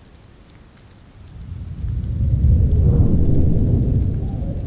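Steady rain with a low roll of thunder that swells from about a second in, peaks in the middle and slowly fades.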